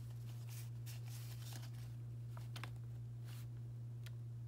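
Trading cards being leafed through by hand, sliding against one another in a series of short, soft brushing strokes, over a steady low hum.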